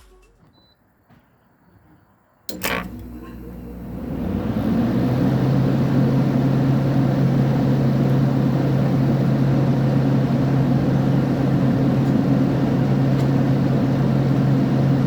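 Amana PTAC heat pump starting in heat mode. After near silence, a single sharp click comes about two and a half seconds in as the reversing valve energizes. The unit's fan and rotary compressor then come up over a couple of seconds to a steady blowing noise with a steady low hum.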